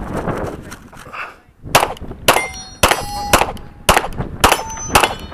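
Canik TP9SF 9mm pistol firing a string of about seven shots, roughly two a second, starting a little under two seconds in. Several shots are followed by a short metallic ringing.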